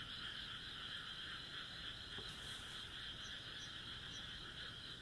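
Faint, steady night chorus of frogs calling without a break.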